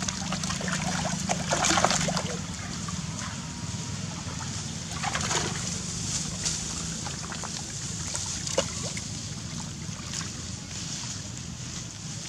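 Shallow muddy water splashing and sloshing as two young macaques wrestle in it, the biggest splashes about two seconds in and again around five seconds, with smaller splashes and a sharp click later on.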